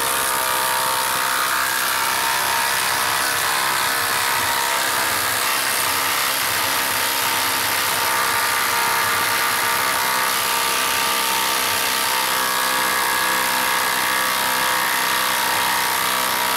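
Ryobi HP brushless impact driver hammering steadily without a break as it drives a 6-inch lag screw into a log round.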